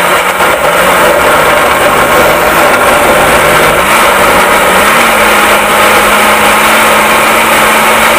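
Countertop blender with a stainless-steel base running continuously, puréeing chilies, tomato, paprika and shrimp paste with water for sambal. The motor's pitch wavers at first as the load shifts, then holds steady from about five seconds in.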